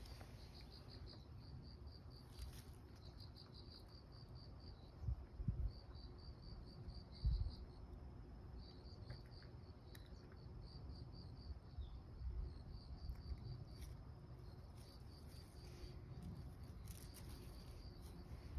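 A cricket chirping faintly and steadily, in short trains of rapid high-pitched pulses, with a few dull low thumps about five and seven seconds in.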